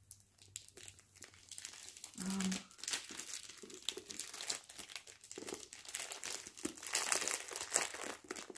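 Paper and plastic packaging crinkling and rustling as it is handled, a run of small crackles that grows busier and louder in the last couple of seconds.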